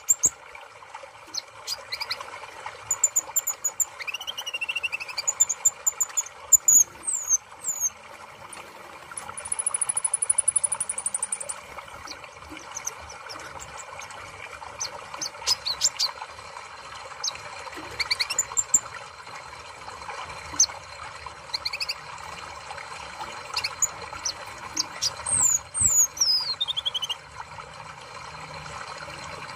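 Black sunbird (kolibri ninja) singing: quick high chirps and short whistled phrases, one long thin steady whistle about ten seconds in, and a falling trill near the end, over steady background noise.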